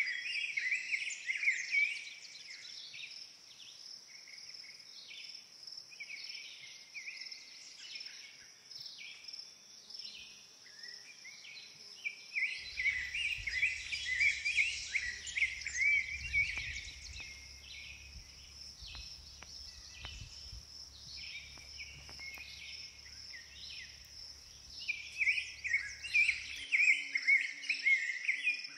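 Several songbirds singing at once in short chirping phrases over a steady high-pitched insect trill. About halfway in, a low rumble joins for roughly fourteen seconds, then stops abruptly.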